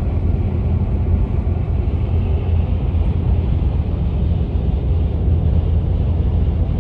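Vehicle running with a steady low rumble, as of engine and road noise while driving.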